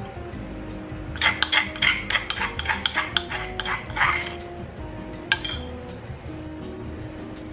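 A measuring spoon scraping and tapping inside a stone mortar, scooping out freshly crushed sesame seeds in a quick run of short scrapes and clicks, then one sharp click a little past halfway.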